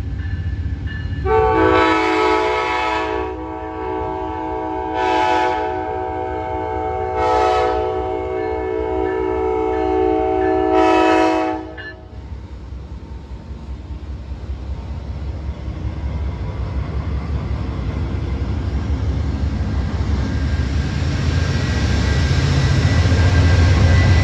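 Amtrak passenger locomotive's multi-chime air horn sounding for the grade crossing: one chord held about ten seconds with four swells (a long one, two short, then a long), cutting off about twelve seconds in. Afterwards the low rumble of the slow-moving passenger train grows steadily louder.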